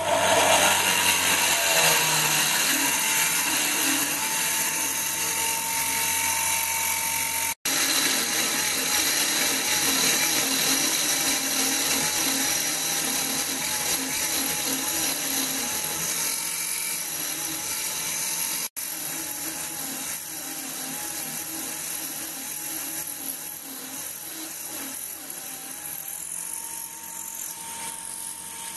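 Small 775 DC motor power spindle driving a drill chuck by toothed belt, drilling a hole into a plate held in the lathe chuck: a steady motor whine over the hiss of the cutting, its pitch wavering as the drill bites. The sound cuts out briefly twice.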